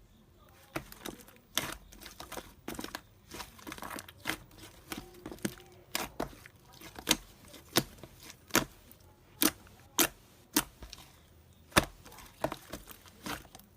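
Slime being worked by hand, with crinkly squishing and sharp clicking pops as air pockets burst. The pops become louder and more regular in the second half, about one a second.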